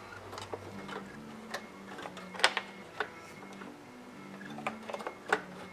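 Irregular sharp clicks and knocks of a circuit board and its wiring being pushed into a sheet-metal drive chassis by hand. The sharpest knock comes about two and a half seconds in.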